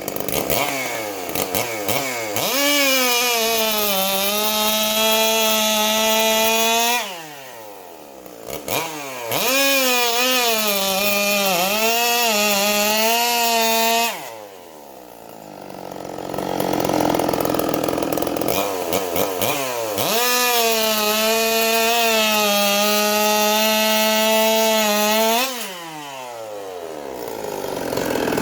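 Custom Stihl two-stroke chainsaw run at full throttle three times, each run lasting about four to five seconds. The pitch climbs quickly, holds high with small dips, then falls away at the end of each run.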